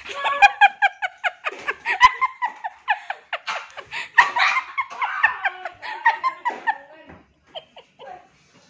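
Hearty laughter in quick, high-pitched peals that dies away about seven seconds in.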